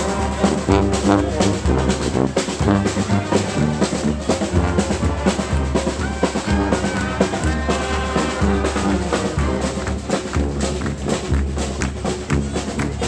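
Brass street band playing live: trombones and trumpets over drums keeping a steady beat.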